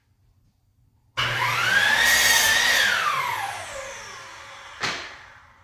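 An electric power tool's motor switched on, spinning up quickly with a rising whine, running briefly, then winding down as it coasts to a stop. A single sharp knock comes near the end.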